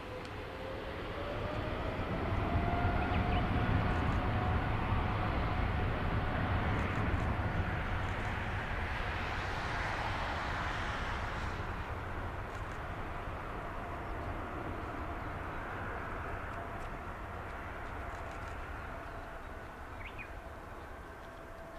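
Jet airliner passing with engines running: a rumble and rushing hiss swell over the first few seconds and then slowly fade. A whine rises in pitch at first, then holds steady.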